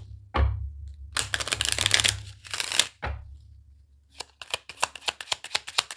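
Tarot cards being shuffled by hand: a rustling swish, then a fast run of sharp card clicks from about four seconds in.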